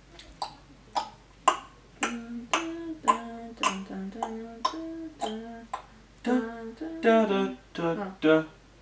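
Finger snapping in a steady beat, about two snaps a second, with a voice humming a tune over it from about two seconds in.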